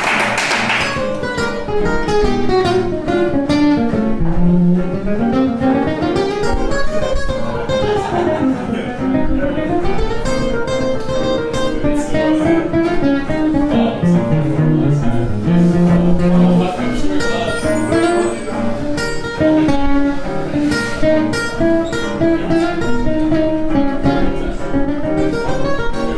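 Jazz guitar duo playing a blues: a Gibson ES-175 archtop electric guitar and an acoustic guitar. One guitar plays a running single-note line that winds up and down while the other comps chords underneath.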